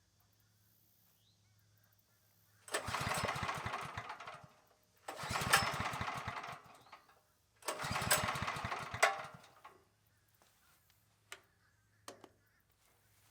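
Briggs & Stratton Storm Responder portable generator's engine being pull-started: three short bursts of engine noise, each about two seconds long with quiet between, as it catches briefly and dies. Two faint clicks follow near the end.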